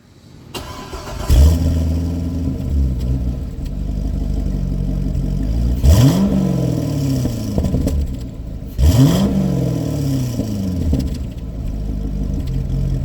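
Chevrolet C6 Corvette's V8 engine starting about a second and a half in and settling into a steady idle, then revved twice with quick throttle blips, each rising and falling back, near the middle and again a few seconds later.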